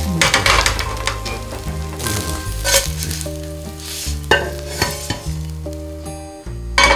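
Onion pancake sizzling in oil in a stainless steel frying pan, with scraping and a knock about four seconds in as the pan is tipped to slide the pancake onto a plate. Soft background music plays underneath.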